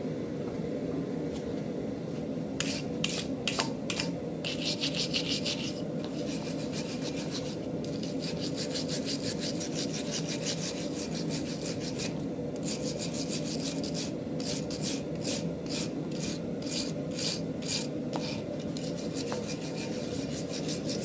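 Hand wire brush with steel bristles scrubbed back and forth over a forged steel animal head, the final cleanup after the chisel work. The brush makes rapid rasping strokes in runs with short pauses, starting a couple of seconds in, over a steady low hum.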